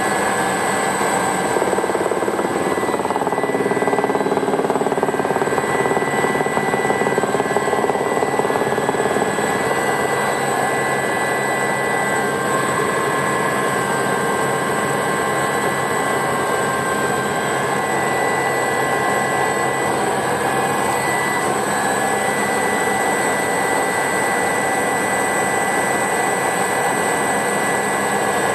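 Aerospatiale Alouette II SA318C helicopter in flight, heard from inside the cockpit: the Turbomeca Astazou turboshaft's steady high-pitched whine over the rush of rotor and airflow noise. It is a little louder for several seconds early on, then holds steady.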